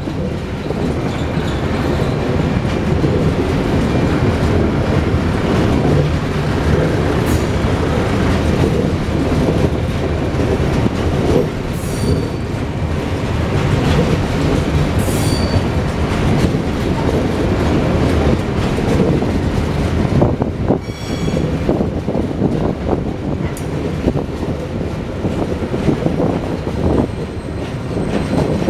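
Coal hopper wagons of a freight train rolling past: a steady rumble and clatter of steel wheels on the rails, with a few short, high-pitched wheel squeals.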